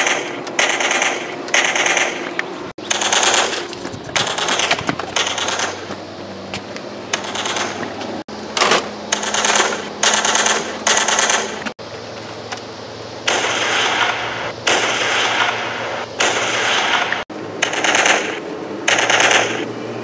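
Gunfire-like rapid-fire bursts, one short burst about every second, breaking off abruptly several times.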